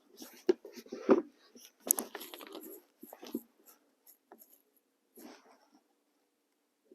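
Handling clicks and light metallic rattles from a Swiss K-31 straight-pull rifle as its ring safety and action are worked, a sharp click about a second in and a cluster near two seconds, then smaller ticks.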